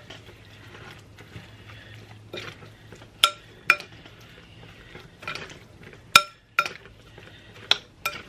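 A spoon stirring and tossing a dressed, shredded-lettuce salad in a bowl: soft scraping with about six sharp, ringing clinks in the second half as the spoon knocks against the bowl.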